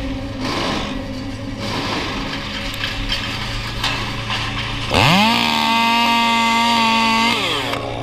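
Echo CS-2511TES 25 cc two-stroke top-handle chainsaw. About five seconds in, it revs sharply up to full throttle, holds a steady high pitch for about two seconds, then falls back off.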